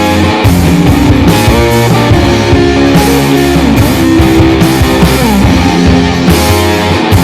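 Rock music with a prominent guitar and a steady beat.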